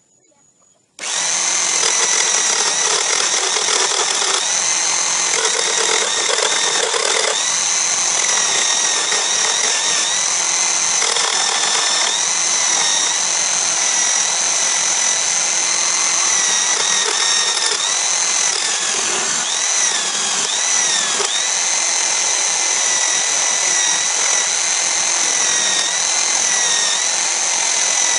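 Electric drill driving a homemade wood lathe switches on about a second in and runs with a steady whine, while a hand chisel cuts the spinning wood. The whine sags briefly in pitch several times as the cut loads the motor.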